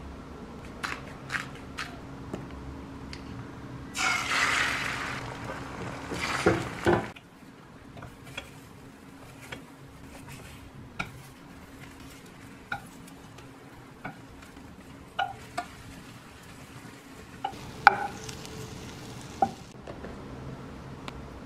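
Home kitchen cooking sounds: scattered light clicks of utensils on a bowl and pan, with a louder hissing, stirring noise lasting about three seconds around four seconds in.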